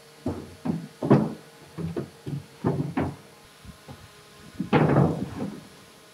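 Solid wooden car seat knocking and bumping against the wooden floor and frame of a wooden truck cab as it is worked into place. There are about eight sharp knocks over the first three seconds, then a louder, longer clatter a little under five seconds in.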